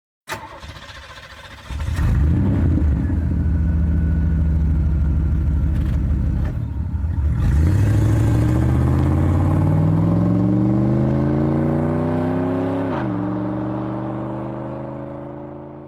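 A car engine runs, then accelerates with a rising pitch, drops in pitch once as it shifts up, and climbs again before fading away as the car drives off.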